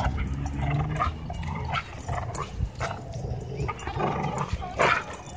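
Dog growling low and rumbling while tugging on a rope toy in play, with a louder burst of sound near the end.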